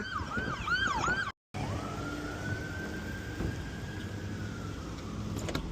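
Emergency vehicle siren: a fast yelp of repeated rising-and-falling whoops, cut off abruptly about a second and a half in, then a single slow wail that rises, holds and fades near the end.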